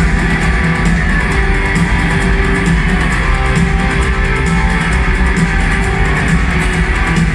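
Live rock band playing at concert volume, with guitars, bass and a steady beat.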